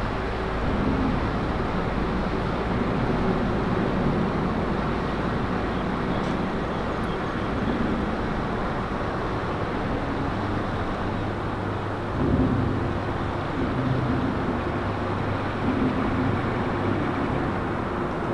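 An engine running steadily: a low hum under a rushing noise, swelling slightly about twelve seconds in.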